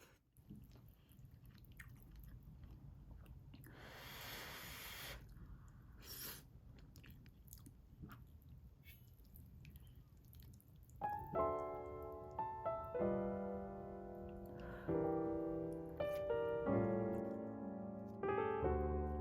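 Close-up eating sounds: a person chewing, with small clicks and a short noisy burst about four seconds in. Piano music starts about eleven seconds in and carries on.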